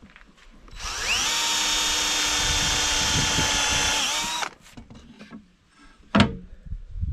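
Power drill running for about three and a half seconds, its whine rising as it spins up, holding steady, then winding down. A single sharp knock follows about six seconds in.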